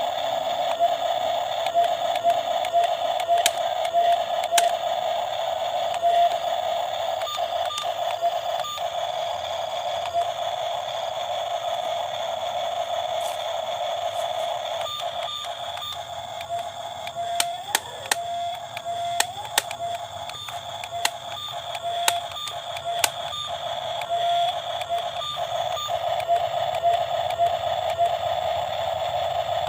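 Steady high-pitched whine of a radio-controlled excavator's small electric motors running, broken by scattered clicks and knocks.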